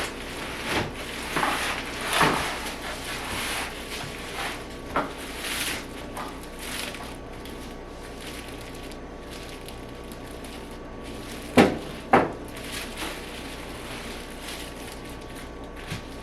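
Cardboard and styrofoam packaging scraping and rubbing as a portable clothes dryer is slid out of its box, followed by two sharp knocks about half a second apart and a smaller knock near the end.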